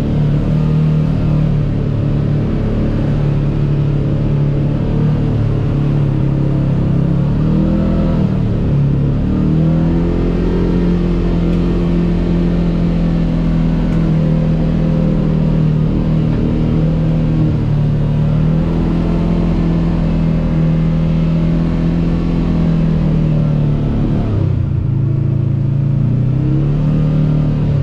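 Kawasaki KRX 1000 side-by-side's parallel-twin engine running under steady throttle, with a low rumble beneath. Its pitch drops briefly about eight seconds in and again near the end, then climbs back as it is revved up.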